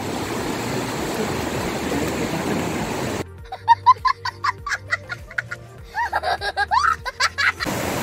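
Steady rushing water for about three seconds, then a sudden cut to a few seconds of inserted music with sharp beats and sliding tones. The water sound comes back, just as suddenly, near the end.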